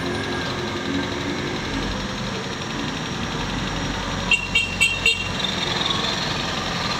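Steady engine and road noise heard from inside a city bus creeping through traffic. About four seconds in, a vehicle horn gives four quick, high-pitched toots.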